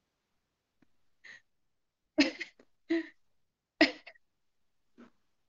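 About five short, breathy vocal bursts from women, spaced roughly a second apart, with silence between them. The loudest come a little after two seconds and just before four seconds.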